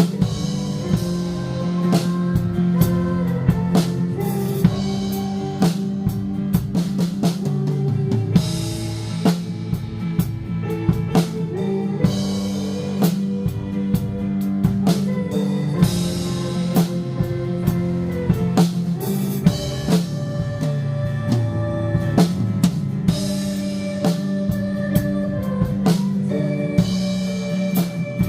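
Band music with a drum kit keeping a steady beat under held bass and guitar notes.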